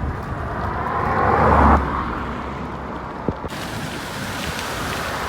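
Road traffic noise: a vehicle's noise swells and cuts off abruptly about two seconds in, followed by a steady outdoor traffic hiss.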